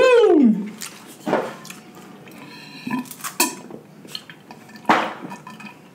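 A man's loud falling "Woo!", then scattered sharp clicks and cracks of snow crab legs being broken and picked apart while eating.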